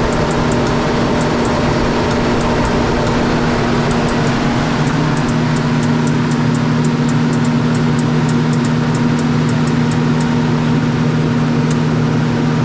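Gardner Denver EBMQLC 75 HP rotary screw air compressor running: a loud, steady drone with two low hum tones and a light fast ticking on top.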